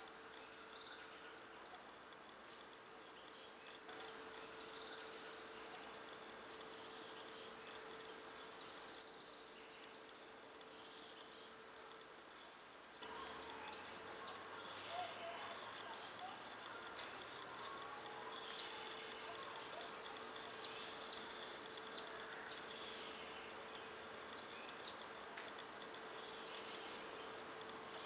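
Faint rainforest insect chorus: a steady hum underneath with many short, high chirps. It gets a little louder and busier about halfway through, with a few brief lower calls mixed in.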